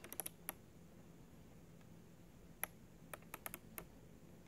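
Sharp plastic clicks and taps of fingers handling a toy subway car: a quick cluster of clicks at the start, a single click about two and a half seconds in, then a run of several close together.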